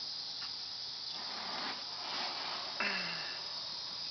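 Steady high-pitched background hiss with faint rustling as the camera moves around the plant pot, and one short sound with a falling low tone about three seconds in.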